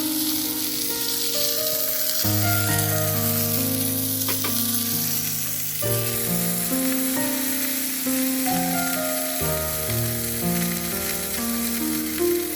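Food sizzling and frying in a pan, a steady hiss, with a couple of brief clicks about four seconds in. Background music of slow held chords plays over it.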